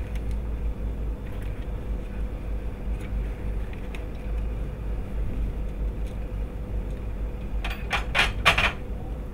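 Steady low room hum with light handling noise, then near the end a quick cluster of four or five sharp metallic clinks as metal surgical instruments and small parts are handled.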